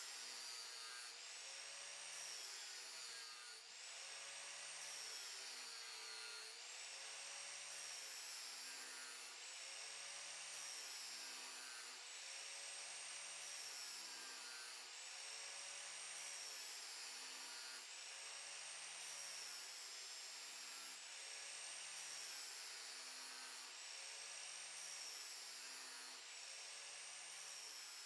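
Right-angle grinder, held in a blade-sharpening jig, grinding the steel edge of a lawn mower blade. It is heard faintly and runs in repeated passes about every two seconds, its motor pitch dipping and recovering with each stroke along the edge.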